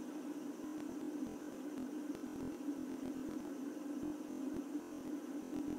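Fidget spinner spinning freely on a wooden tabletop, its bearing giving a steady low hum.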